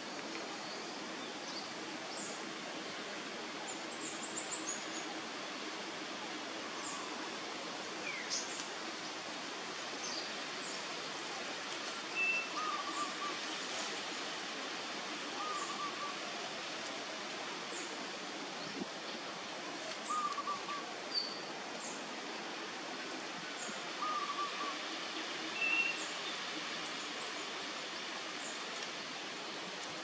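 Scattered bird calls over a steady outdoor hiss: short mid-pitched chirps every few seconds, a couple of higher chirps, and faint, thin high ticks.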